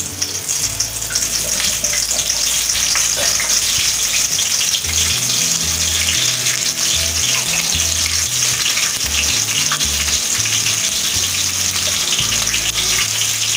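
Hot oil sizzling steadily in an aluminium kadai as small pieces of green chilli fry with mustard seeds, cumin and fennel.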